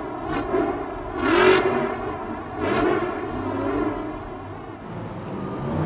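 El Toro Loco monster truck's supercharged V8 engine revving hard under throttle, its pitch rising and falling. It gives loud bursts about a second and a half in and again near three seconds, then eases off toward the end.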